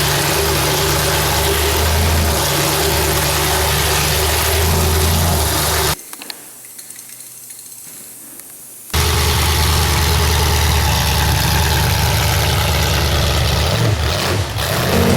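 Demolition derby car's engine idling loudly and roughly. It cuts off abruptly about six seconds in, leaving only quiet background for about three seconds, then returns at the same steady idle.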